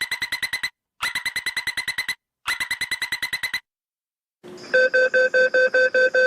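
Metro train door-closing warning: three short bursts of rapid beeping, about ten beeps a second, then a slower, lower-pitched run of beeps at about five a second as the doors shut.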